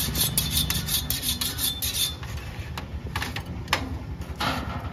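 Metal kitchen utensils scraping at a shawarma counter: a quick run of rasping metal-on-metal strokes, about five a second, for the first two seconds, then a few separate scrapes and clinks. A low steady hum runs underneath.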